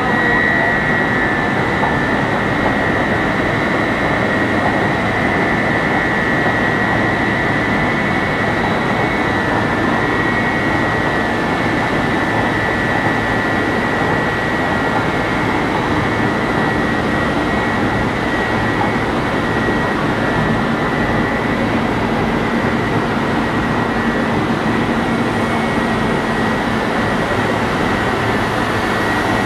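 HDPE/PP film recycling extrusion line running: a loud, steady machine noise with a constant high-pitched whine over it.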